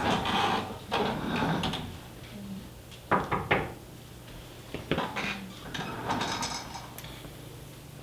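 Rolling office chair being sat in and shifted, with rustling and clatter and three sharp knocks a little after three seconds in.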